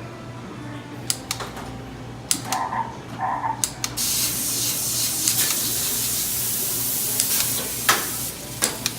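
Coin-operated arcade shooting gallery in play: a run of sharp clicks as the gallery rifle is fired, two short electronic tones a few seconds in, and a steady hiss lasting about four seconds from the middle.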